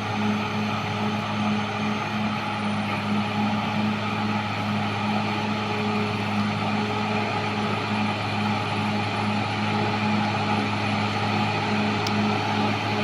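Caterpillar D6R XL bulldozer's diesel engine running steadily with a continuous low drone and an even pulsing throb.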